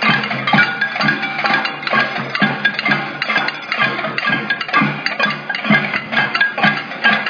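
Music with a steady percussive beat of about two strikes a second.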